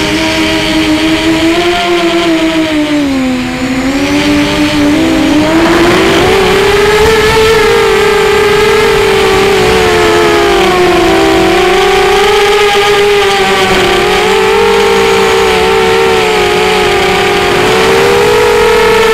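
Strider Flex 250 FPV quadcopter's brushless motors and propellers whining, heard from the quad itself. The pitch sags about three to five seconds in, climbs sharply and gets louder about six seconds in, then wavers up and down with the throttle.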